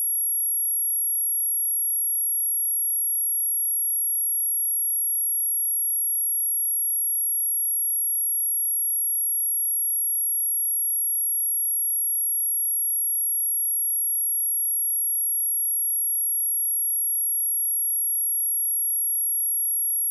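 A steady, high-pitched 11268 Hz pure sine-wave test tone, one unchanging note, as used to test speakers or to shake water and dust out of a speaker.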